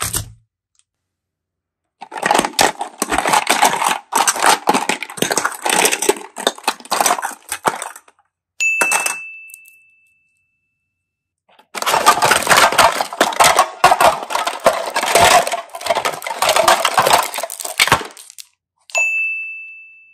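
Plastic items rummaged and knocked together in a plastic basket: two long stretches of dense crackling clatter, each followed by a short bright ding that fades away.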